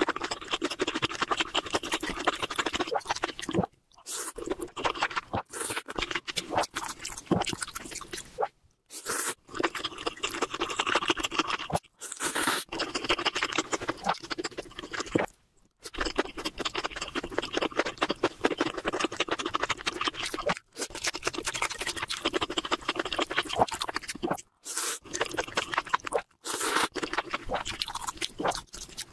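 Close-miked chewing of a mouthful of spicy instant noodles: steady wet, crackly mouth sounds, broken several times by brief sudden silences.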